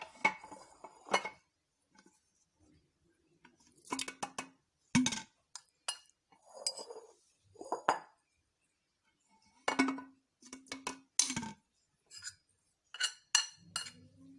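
Glassware clinking and knocking: scattered short, sharp clinks with a brief ringing tail, bunched in small clusters, with a couple of soft rustling scrapes about halfway through.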